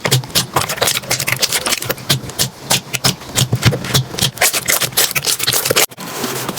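Slime being squeezed and worked by hand: a quick, uneven run of sticky clicks and pops, broken by an abrupt change of sound about six seconds in.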